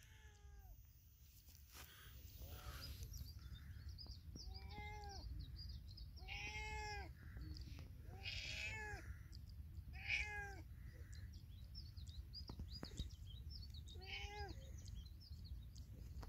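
Domestic cat meowing repeatedly, about seven meows a second or two apart, each rising and then falling in pitch.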